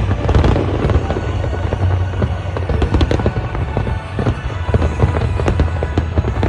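Aerial fireworks bursting in rapid succession: a dense string of sharp bangs and crackles over a steady low rumble.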